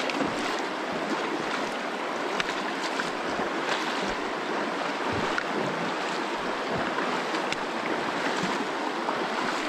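The Virgin River's water rushing steadily over rocks through the canyon, with a few short splashes on top.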